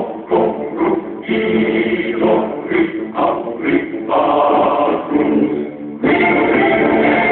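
Music with voices singing together, choir-like; the sound becomes denser and steadier about six seconds in.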